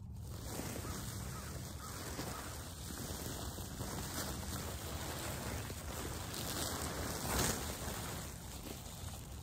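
Black plastic weed-barrier ground cover being pulled up and lifted, rustling and crinkling steadily, loudest about seven seconds in.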